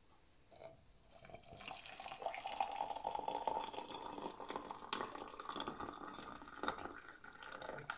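Hot water pouring from a jug into a glass jar, a steady splashing stream. The pitch rises as the jar fills. It starts about a second in and stops near the end.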